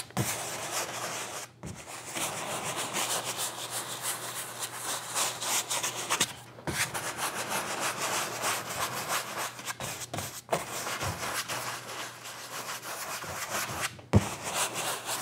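A 2-inch paint brush scrubbed in quick crisscross strokes over a gessoed canvas, its bristles rasping as it works a thin layer of liquid clear into the surface. The brushing stops for a moment a few times.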